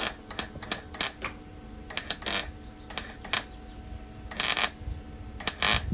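Irregular sharp metallic clicks and taps with a few short scraping bursts, from hand work on a car body. The sound starts abruptly.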